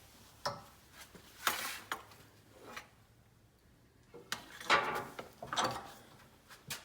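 Hand work on a small steel bracket piece: a series of irregular short metallic scrapes and knocks, clustered around two seconds and again from about four to six seconds in.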